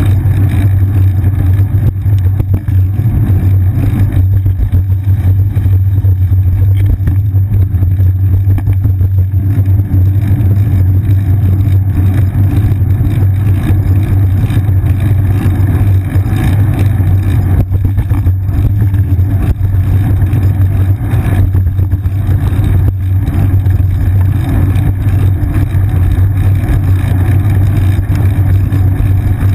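Loud, steady low rumble of a bicycle on the move, as picked up by a GoPro Hero 2 mounted under the bike's seat: wind buffeting the camera and ride vibration from the paved path.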